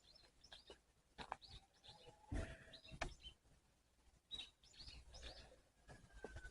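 Faint birdsong: scattered short chirps from several small birds, with a few soft knocks in between.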